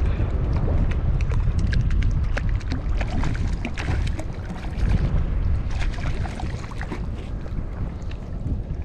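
Wind rumbling on the microphone, with a hooked fish splashing at the water's surface as it is fought on a rod, and many short scattered ticks and crackles.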